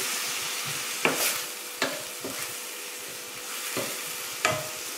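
Chopped onions and tomatoes sizzling in oil in a stainless steel frying pan while being sautéed, with a wooden spatula stirring and knocking against the pan several times.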